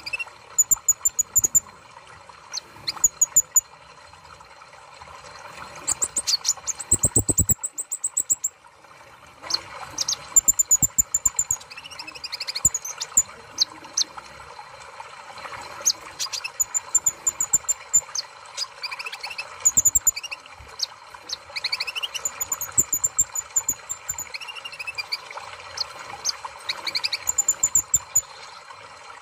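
Kolibri ninja (a sunbird) chirping: short, high, thin calls and quick twittering trills in repeated bouts, over a steady hiss.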